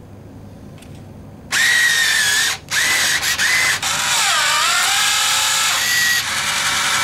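Bill validator's motor drawing in and scanning a banknote. It makes a loud whine that starts about a second and a half in and stops briefly a few times. Midway it dips in pitch and comes back up, then carries on.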